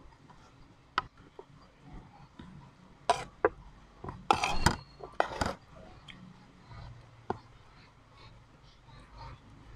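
A metal spoon clinking and scraping against a ceramic plate while eating, with a few sharp separate clicks and a busier run of clatter about halfway through.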